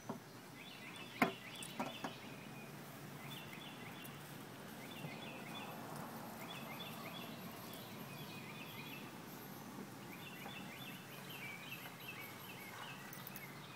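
A bird singing over and over, short phrases of quick high notes every second or two, with a sharp click about a second in and the soft rustle of fleece seat-cover fabric being handled.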